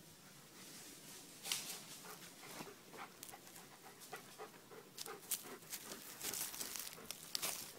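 Footsteps crackling through twigs and dry leaf litter on a forest floor, an irregular run of snaps and rustles that starts about a second and a half in, with breathy panting.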